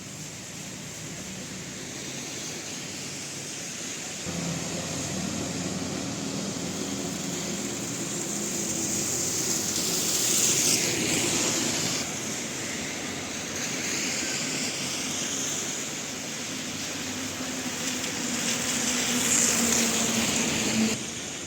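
Traffic passing on a rain-wet city street. A steady hiss is broken by vehicles swelling up and fading away as they pass close, loudest about ten seconds in and again near the end.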